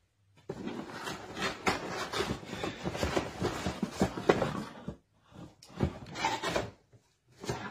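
Cardboard and paper packaging being handled: a dense rubbing and scraping with many small clicks for about four seconds while a pistol is lifted out of its shipping box, then a few shorter scrapes and knocks.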